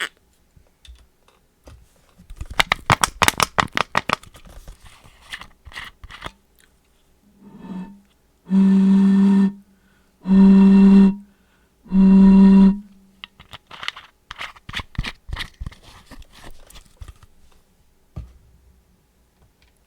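Mouth sound effects: a rapid run of wet clicks and crackles, then three held voiced notes on the same low pitch, each about a second long with short gaps between, then more scattered clicking and crackling.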